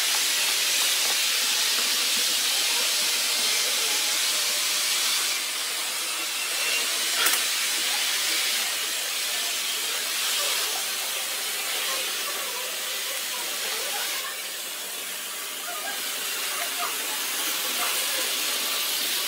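Model trains running on a large layout: a steady high rushing hiss of wheels on track that eases off twice, with a single sharp click about seven seconds in.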